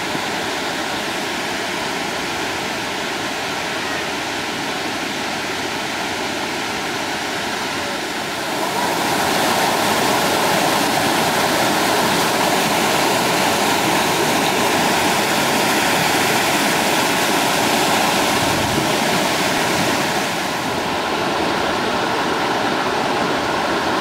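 Water rushing and splashing over boulders in a rocky stream, a steady noise that grows louder about eight seconds in and eases back about twenty seconds in.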